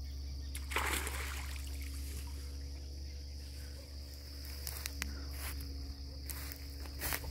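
Steady high chirring of insects over a low rumble, with a splash and rush of water about a second in as a cast net is hauled out of a pond, and a few short clicks and rustles near the end as the net is laid down.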